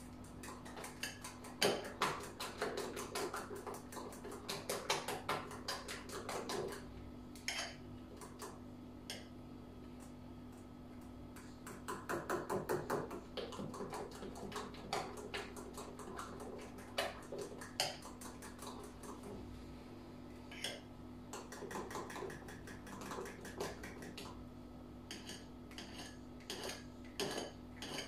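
A fork beating batter by hand in a bowl, clattering against the bowl in fast runs of clicks with short pauses between, to break up lumps in the batter. A steady low hum runs underneath.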